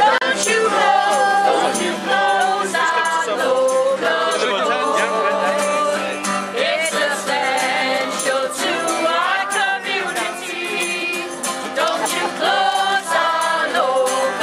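Music with singing: voices carry a melody over instruments, with percussion hits throughout.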